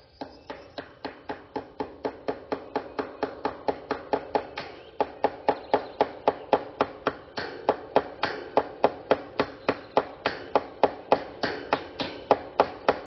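Hammer driving fencing staples into a 2x4 frame to pin a cattle panel: a long run of steady, even blows, about three to four a second, getting louder over the first few seconds.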